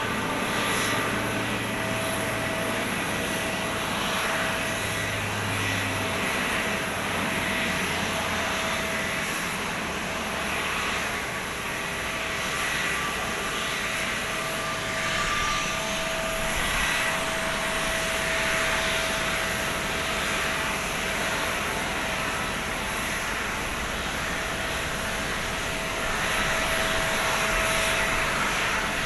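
Jet airliner engines running with a steady rushing hiss and whine, and a thin high whine that rises slowly for several seconds around the middle.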